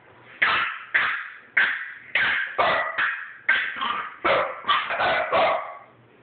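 French bulldog barking in a rapid run of about a dozen short, sharp barks, roughly two a second, in a squabble with another French bulldog.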